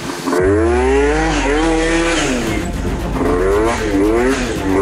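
Yamaha Jog scooter's small engine revving up and down while riding, its pitch rising and falling about four times as the throttle is opened and eased off.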